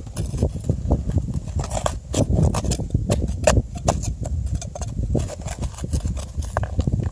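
Stones knocking and scraping together as stony ground is dug out: an irregular run of sharp clacks and thuds over a steady low rumble.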